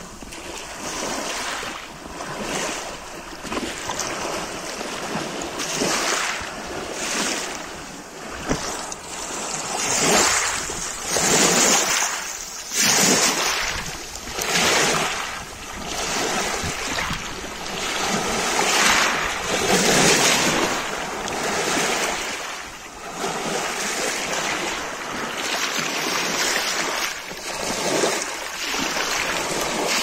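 Small waves washing in over a pebble beach. The surf hiss rises and falls with each wave, a new surge every second or two.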